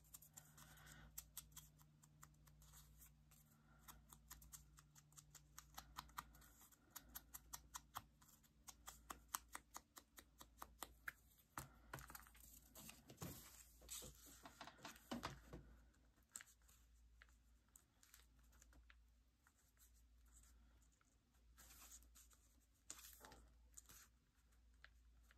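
Faint quick taps and light scrapes of an ink applicator dabbed onto a black ink pad and worked along the edges of a paper cut-out, several a second, thinning out after about sixteen seconds.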